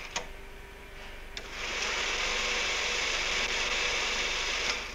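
Tape-handling mechanism of an electronic computing machine running perforated tape: a couple of clicks, then from about a second and a half in a steady whirring hiss with a faint tone beneath it, cutting off just before the end.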